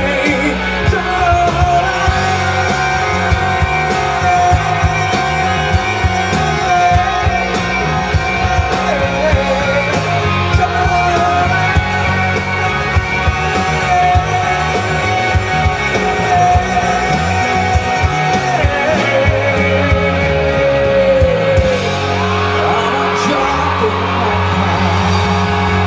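Live rock band playing through a PA: electric guitars and drums under a male singer who holds long sustained notes, his voice sliding down about three quarters of the way through.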